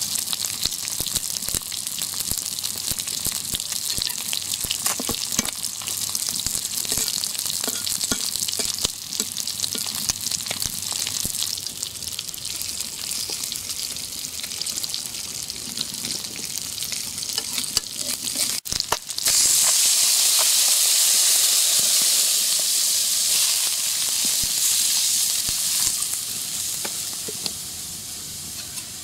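Fish frying in hot oil in a karahi, a dense crackling sizzle. About two-thirds through it changes to a louder, even hiss as water goes into the hot pan to make the curry, and the hiss tapers off near the end.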